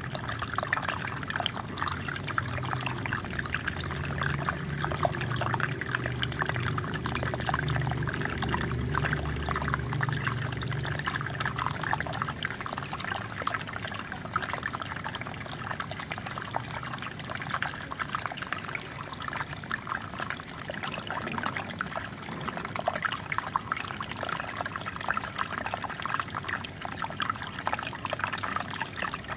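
Small waterfall running steadily, water pouring and splashing with a continuous trickle. A low rumble sits under it for the first ten seconds or so.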